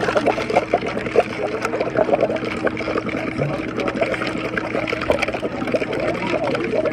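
Water bubbling continuously: a dense, irregular run of short bubble pops and gurgles over a steady low hum.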